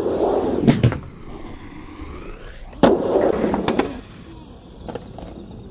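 Skateboard wheels rolling on a mini ramp, with sharp clacks of the board and trucks. The loudest, a crack about three seconds in, starts a second stretch of rolling, and a few lighter knocks follow.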